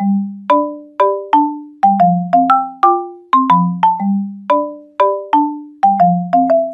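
Background music: a bouncy tune of short struck mallet-percussion notes, marimba-like, each ringing briefly and fading, with a low note on most beats.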